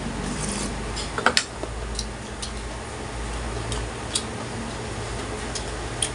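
Close-up eating sounds, chewing and mouth clicks and smacks, while eating fish soup and fried tuna. There are a few short sharp clicks, the loudest cluster a little over a second in, over a steady low hum.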